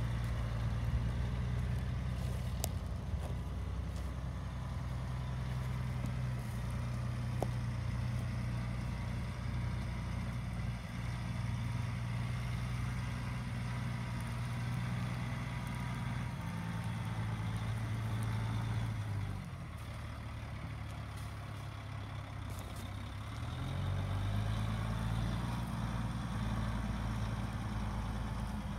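Diesel engine of a 2006 Sterling AT 9500 tandem-axle truck-tractor running steadily as the truck drives slowly around. About two-thirds of the way through the engine note drops and goes quieter for a few seconds, then picks up and rises again.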